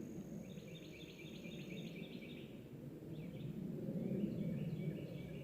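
Outdoor creekside ambience: a steady low rush under a rhythmic, repeating high chirping of insects or birds. A faint thin high whine stops about two seconds in.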